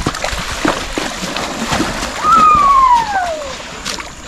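A horse and a mule wading through a deep muddy creek, their legs splashing and sloshing the water. About two seconds in, a long falling whistle-like tone, the loudest sound here, sounds over the splashing for a little over a second.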